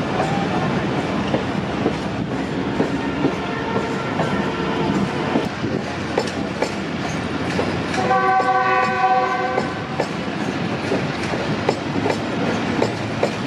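Passenger coaches rolling slowly past, their wheels clicking over the rail joints. A train horn sounds for about two seconds a little past the middle, after a fainter horn tone a few seconds earlier.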